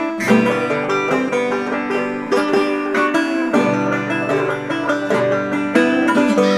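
Background music with a quick plucked banjo-and-guitar tune in a bluegrass style.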